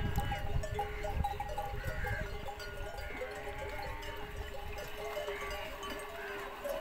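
A herd of camels at a watering pond: animal bells ringing steadily, with short bleating calls about once a second. A low wind rumble on the microphone fades out in the first couple of seconds.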